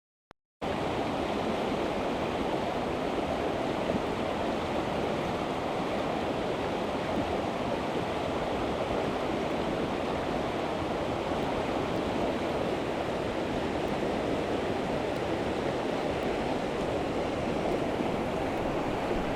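Steady rush of a fast-flowing mountain stream's current, starting abruptly after a moment of silence.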